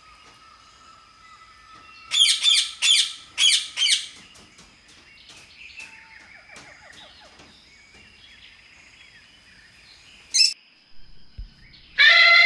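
A bird calling: five loud, harsh calls in quick succession about two seconds in, then faint scattered chirps over a steady high tone, and one more short loud call near the end.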